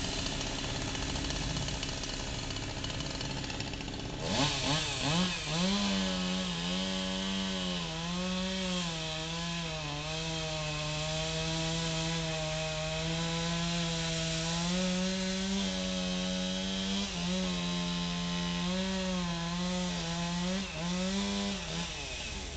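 Chainsaw idling, then revved up about four seconds in and held at high revs while cutting into a tree, its pitch dipping and recovering as the chain bites the wood, before it drops back to idle near the end.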